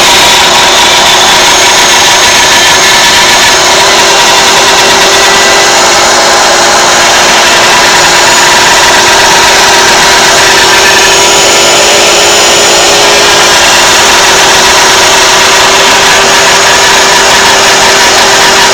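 A home-made CNC router's spindle running steadily at high speed while it carves walnut: a loud, even whine over cutting noise that holds without a break.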